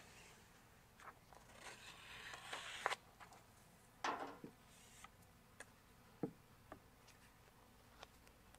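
Faint rustling and crackling of backing paper being peeled off a vinyl stripe, building for a couple of seconds and ending in a sharp click. A second short rustle follows, then a few light ticks and taps as the stripe is handled.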